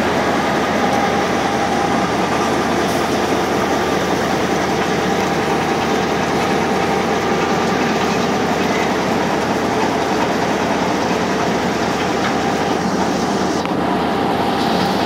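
Class M6 diesel locomotive's engine idling at close range, a loud, steady running sound with a faint hum, unbroken throughout.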